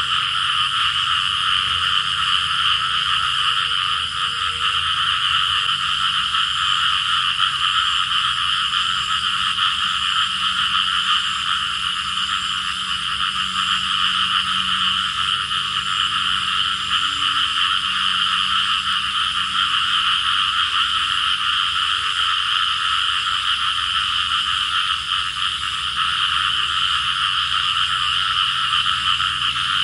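A steady, dense chorus of calling frogs, an unbroken wall of high-pitched calls with no pause.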